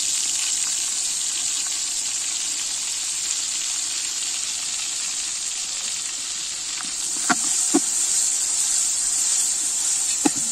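Onions frying in oil in a large aluminium pot over a wood fire: a steady sizzle throughout. Three short sharp knocks sound in the second half.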